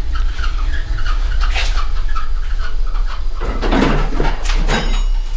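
Manual lathe running at low spindle speed while a high-speed-steel parting tool cuts off the spacer: a steady low machine hum under short, intermittent high cutting noises, with louder bursts from about three and a half seconds in.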